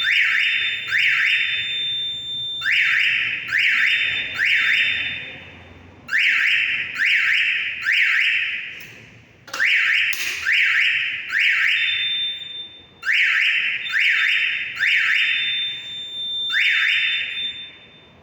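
Electronic fire alarm sounder going off: loud, short rising tones in groups of three with a pause between groups, the temporal-three evacuation pattern. It stops near the end.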